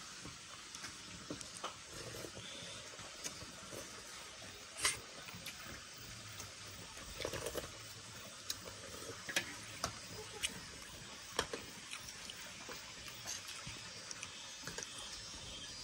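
Quiet eating sounds: metal spoons tapping and scraping on ceramic plates of rice, heard as scattered light clicks over a faint steady hiss.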